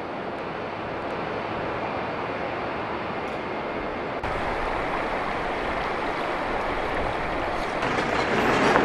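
Steady rushing noise. After an abrupt cut about four seconds in, a truck's engine and tyres run on the road with a low rumble that grows louder toward the end.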